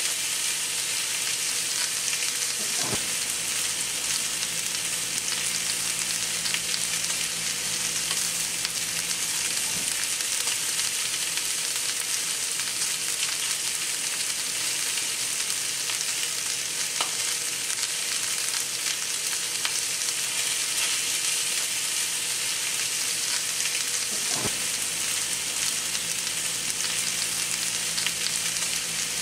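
Two New York strip steaks and chopped garlic sizzling steadily in a hot pan, with a few faint clicks.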